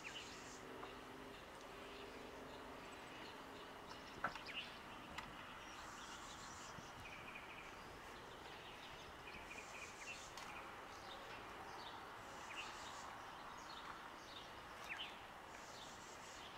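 Faint outdoor background of small birds giving scattered short chirps and calls, with brief high buzzes every few seconds.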